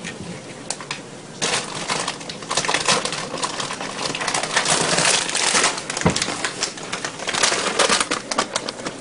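A cat rummaging, first in a kitchen cabinet and then at a crinkly plastic snack bag: continuous crackling and rustling with many small clicks, and a sharp knock about six seconds in.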